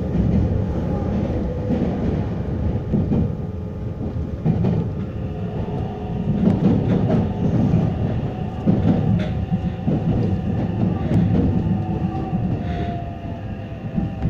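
Meitetsu 3150 series electric train running, heard from inside the car: a steady wheel-on-rail rumble with scattered clicks from the track and a motor whine. Over the last few seconds the whine falls slowly in pitch as the train slows.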